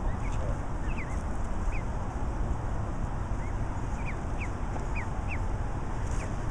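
Canada goose goslings peeping: about ten short, high calls that slide downward, with four in quick succession a little past the middle, over a steady low rumble.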